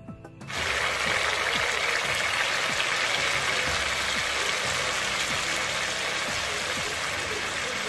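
Chicken tocino frying in a pan: a loud, steady sizzle that starts suddenly about half a second in.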